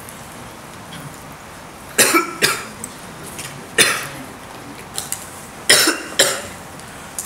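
A man coughing hard in short fits: a double cough about two seconds in, a single cough near four seconds, and another double cough near six seconds.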